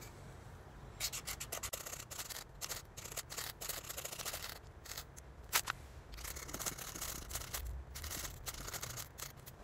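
Lifesystems ferrocerium rod struck again and again with a striker, a series of short rasping scrapes in several quick runs, throwing sparks onto a waxed tinder disc to light it.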